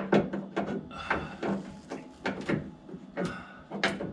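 Irregular clicks and knocks of the Jaguar MKII wiper motor and its mounting parts being handled and tried against the mounting holes, over a faint steady hum.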